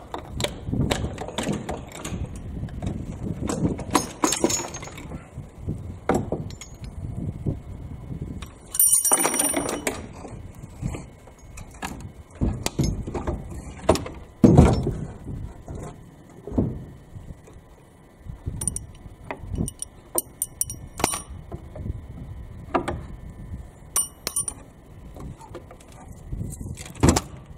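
Cast-iron cylinder head of a Chevy 283 small-block being worked loose and lifted off the block: knocks, scrapes and clanks of metal, with a bright ringing metallic clank about nine seconds in and a few short ringing clinks later.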